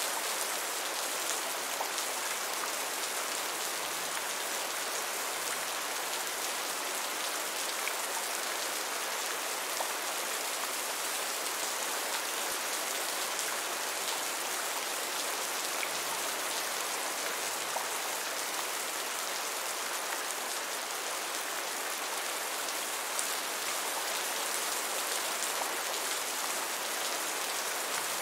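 Heavy rain falling steadily: an even, unbroken hiss with scattered distinct drop ticks.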